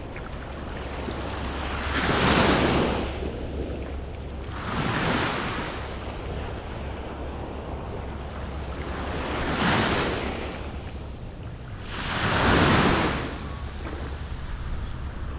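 Small waves washing up onto a sandy beach, the surf swelling and fading four times, with wind rumbling on the microphone underneath.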